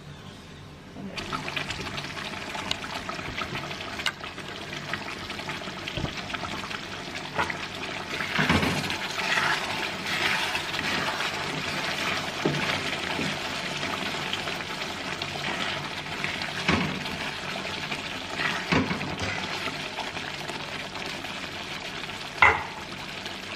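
Rendang frying in oil in a pan, a steady sizzle that starts about a second in, with a spatula stirring and scraping through it and now and then knocking against the pan.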